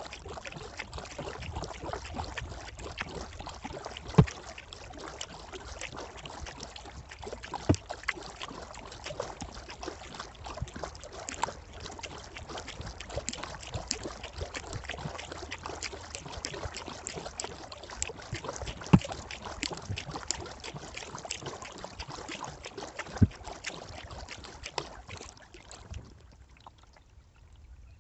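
Kayak paddling: paddle blades dipping and water trickling and dripping off them in a steady splashing, with four loud sharp knocks spread through it. The splashing dies away near the end as the paddling stops.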